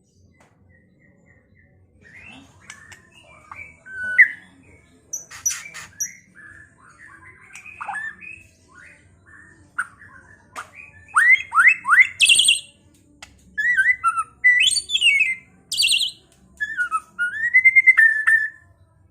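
White-rumped shama (murai batu) singing, starting about two seconds in: a varied run of clear whistles, slurred rising and falling notes and short rapid chattering phrases.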